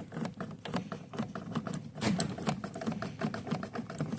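Irregular light clicks and taps of small plastic switch parts and wire connectors being handled, several each second.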